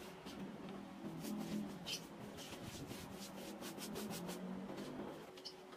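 Paintbrush stroking clear gloss water-based varnish onto a plywood door: a faint, repeated scratchy swish of bristles over the wet wood. A low wavering hum sits underneath, swelling in the middle.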